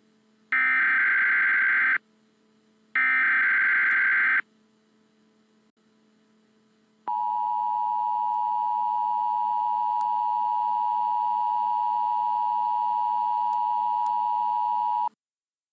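Emergency Alert System tones for an Emergency Action Notification: two shrill bursts of SAME header data, each about a second and a half long, with a short gap between them. After a few seconds of quiet comes the two-tone EAS attention signal, held steady for about eight seconds before it cuts off suddenly.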